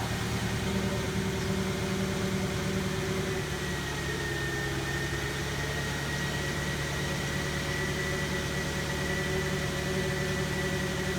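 Volkswagen Passat W8's 4.0-litre W8 engine idling steadily just after a cold start. A thin, steady high whine joins the idle a few seconds in.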